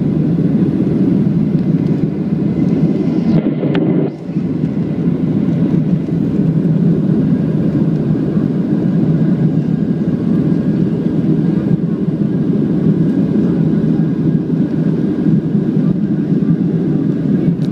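Steady, deep engine and airflow noise of a Boeing 737-800's CFM56-7B jet engines, heard inside the cabin over the wing during the climb after takeoff. The level dips briefly about four seconds in.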